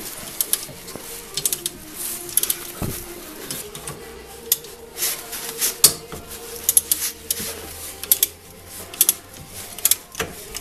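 Metal hand tools and brake parts clicking and clinking irregularly, with a faint steady hum underneath.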